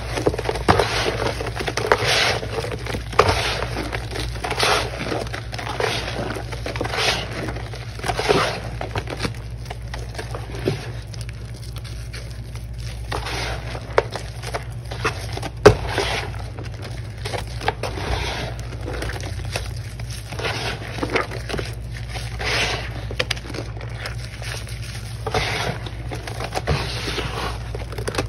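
Hands squeezing and kneading wet, foamy cleaning-powder paste with crumbled chunks and sponge pieces, giving repeated wet squishing and gritty scraping strokes about once a second. A sharp click comes about halfway through, over a steady low hum.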